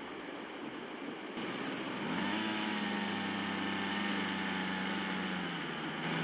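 A small petrol engine starts up about two seconds in and runs at a steady high speed, its pitch dropping slightly near the end.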